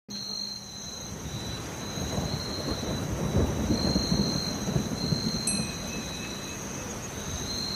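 Rain-and-thunder ambience: steady rain patter with a low thunder rumble swelling in the middle, and a chime note about five and a half seconds in.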